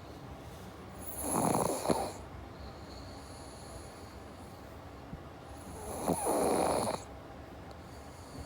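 A pug snoring in its sleep: two long snores about five seconds apart, each lasting a second or more, with a low background between them.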